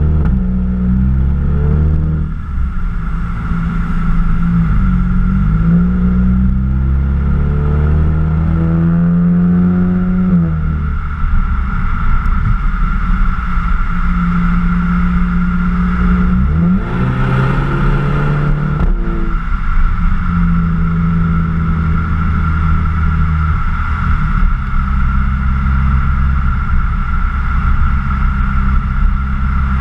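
Exhaust of a 2014 VW GTI Mk6's turbocharged 2.0-litre four-cylinder through a Borla aftermarket exhaust, heard right at the tailpipe while driving. The note climbs in pitch through the revs a few times in the first ten seconds, rises sharply again about halfway through with a brief burst of rushing noise, then settles into a steady cruising drone.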